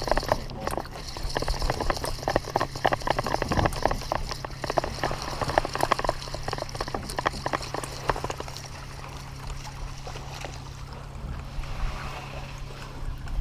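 Seawater splashing and slapping against a boat's hull in dense irregular crackles that thin out after about eight seconds, over a steady low hum from the boat.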